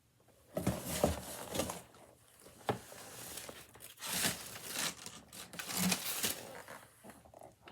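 Packaging crinkling and rustling in irregular bursts, with a few light knocks, as items are handled and moved about in a shipping box.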